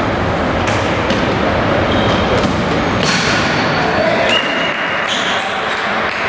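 Tchoukball play in a sports hall: a few sharp ball impacts, the loudest about three seconds in, and short squeaks of shoes on the court over a steady loud din.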